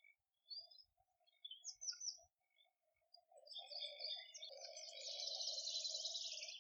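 Several songbirds singing in spring woodland, short phrases and chirps at first, then overlapping song that builds to a fast, high trill near the end.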